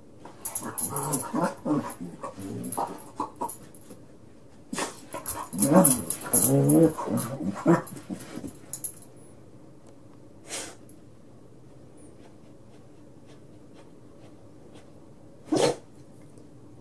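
A dog making short vocal noises that rise and fall in pitch as it rolls and wriggles on its back on a carpet, in two spells in the first eight seconds, then one short sound near the end.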